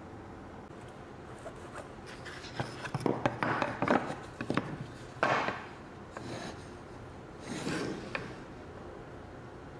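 Thin plywood boards being handled and fitted together on a wooden workbench: clusters of light knocks and wood-on-wood scraping about three to five seconds in, with a shorter scrape near eight seconds.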